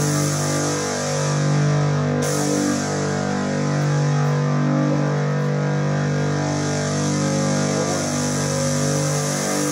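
Live rock band playing the slow opening of a concert: long sustained chords that change every second or two, over a steady high hiss.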